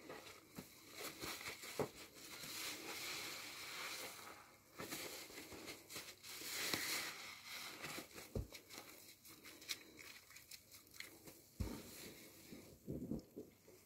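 A new car-wash sponge squeezed and wrung by hand in thick soapy lather: wet squelching and fizzing crackle of the foam, swelling and easing with each squeeze. There are a few soft low thumps in the second half.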